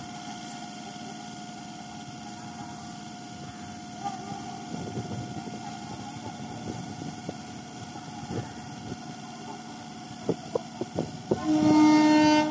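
A train's horn sounds one steady blast of about a second near the end, the loudest thing here. Before it there is a steady hum with a constant tone, and a few scattered knocks and clanks just before the blast.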